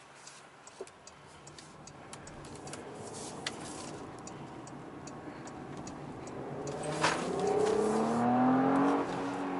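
Porsche Cayenne Coupé heard from the cabin: the turn-signal indicator ticking steadily, about three clicks a second, over low road noise. About seven seconds in, the engine note rises in pitch as the car accelerates.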